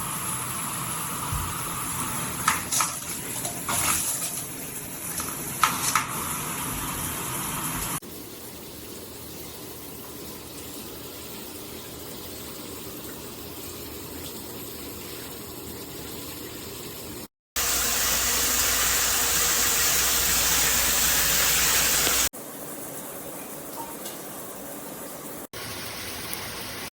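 Shower head spraying water, in several abruptly cut segments of steady hiss. The loudest and fullest spray runs for about five seconds about two-thirds of the way through, and a few knocks come in the first part.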